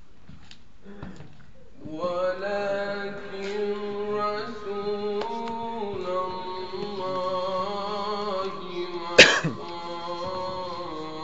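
Solo male Quran recitation: after about two seconds of near quiet, a young man's voice starts a long, melodic recited phrase in held notes that step up and down in pitch. A single sharp, loud noise cuts in about nine seconds in.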